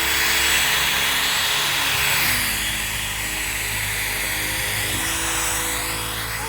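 DeWalt cordless power drill running continuously as it winds in fishing line with a hooked bass on the end, its motor pitch sliding down and back up as it works.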